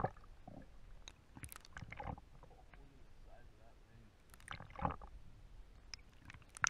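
Muffled underwater sound from an action camera in its waterproof housing held below the surface: a low rumble with scattered clicks and knocks, the loudest knock a little under five seconds in.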